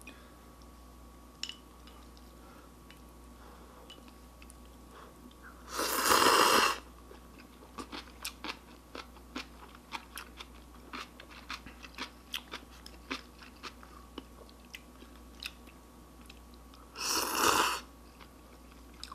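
A person eating ramyun noodles. There are two loud, noisy slurps about a second long, one near six seconds in and one near the end, with wet chewing and small clicks in between.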